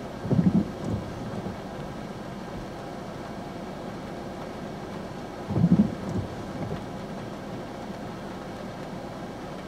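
Steady outdoor rushing noise with two brief low rumbles, one near the start and one just past the middle, about five seconds apart.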